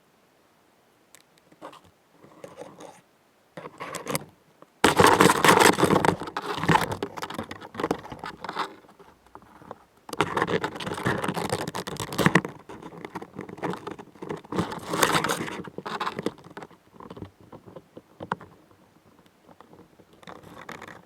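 Close-miked scraping, scratching and crunching from a Chinese mantis and the prey it has caught. The sound comes in long, loud, crackly stretches from about five seconds in to about sixteen, with lighter scratches before and after.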